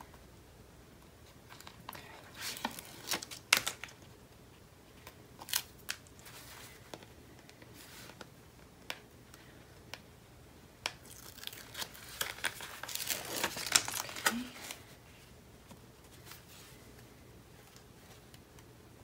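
Paper and card stock being handled at a craft table: rustling and crinkling with scattered sharp clicks and taps, busiest about two thirds of the way through.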